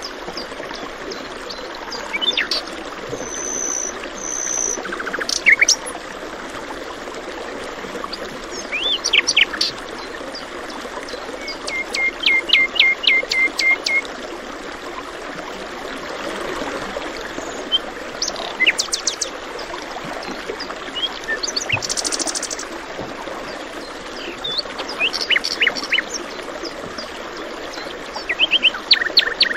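Several wild birds chirping and singing in scattered calls over a steady trickle of running water. Partway through, one bird gives a quick run of about a dozen chirps.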